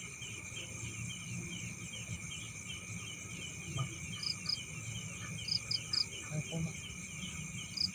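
Night chorus of crickets and other insects: steady high trilling with a short chirp repeating evenly several times a second, and a few brief high double chirps scattered through it.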